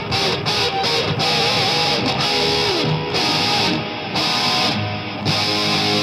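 Guitar-driven rock music playing at a steady, loud level.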